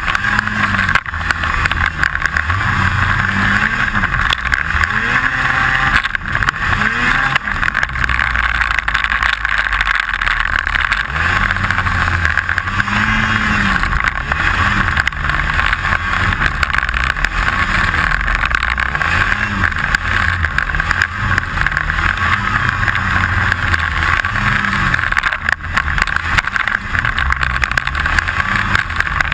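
Snowmobile engine running, revving up and falling back again and again as it rides through powder. Under it runs a constant rattle of unknown cause.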